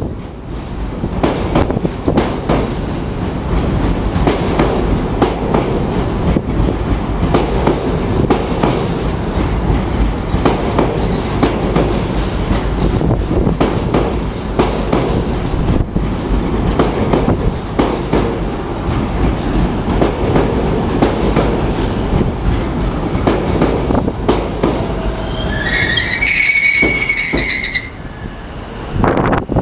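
Tobu 50050-series electric train running past at reduced speed under a strong-wind restriction, wheels clacking over the rail joints with gusts buffeting the microphone. Near the end a high wheel squeal wavers for about two seconds.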